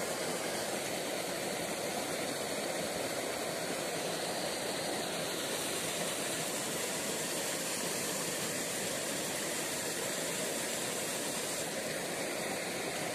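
A steady, even hiss of outdoor background noise with no distinct events.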